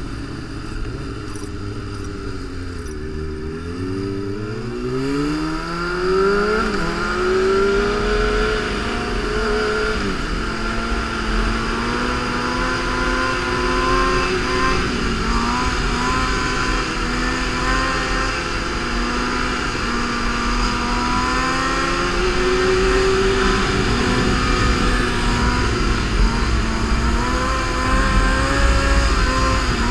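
Motorcycle engine under way at speed. Its pitch drops over the first few seconds, climbs steadily as it accelerates, then holds a high steady speed with small rises and falls, over a constant low rumble.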